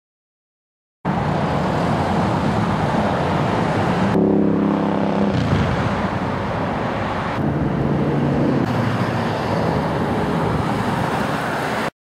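Roadside traffic: a steady wash of road and tyre noise as cars drive past, with a louder engine passing about four seconds in and another engine hum around eight seconds.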